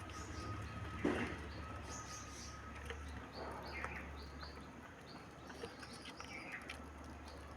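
Small birds chirping: many short, high chirps scattered throughout, with a brief sharp noise about a second in, over a low steady hum.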